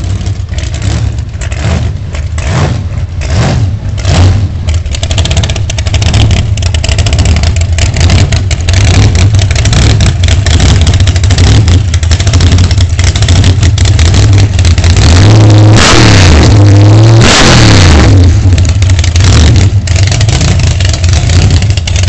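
Supercharged V8 of a 916-horsepower T-bucket hot rod, running loud with a lumpy, loping idle through open zoomie headers. Its throttle is blipped in pulses early on, and about three-quarters of the way in it is revved hard twice, the pitch climbing and falling back each time.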